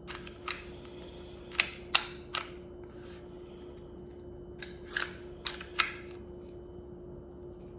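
Taurus G3C 9mm pistol's steel slide being worked onto the frame rails by hand: sharp metal clicks in small clusters, with a faint steady hum underneath.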